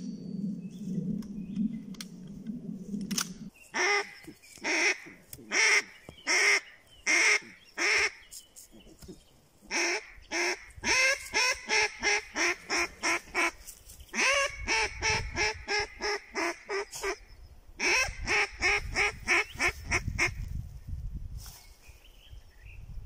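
A flock of geese honking in long series of short repeated calls, starting a few seconds in and going on, with a few short pauses, until near the end.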